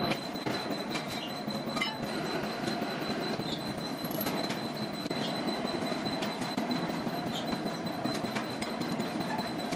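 Metalworking machinery running steadily, a thin steady high whine over a dense mechanical noise, with scattered sharp metallic clicks.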